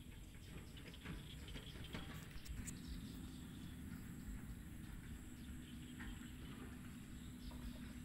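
Faint outdoor field ambience: a steady low hum and hiss, with scattered soft clicks and ticks.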